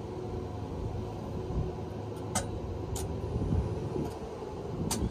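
Steady low machine hum, with three short sharp clicks a little after two seconds, at three seconds and near the end.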